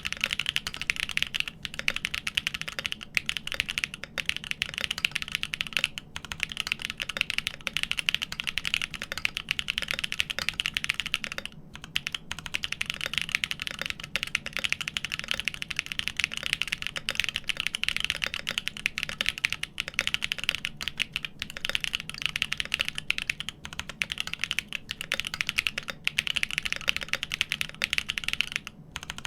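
Steady, fast typing on a GEON Frog TKL mechanical keyboard with an aluminium plate, Everglide Dark Jade switches on 72g slow springs lubed with Tribosys 3204, and INFINIKEY Dark Mode keycaps, a dense run of keystrokes broken by two brief pauses.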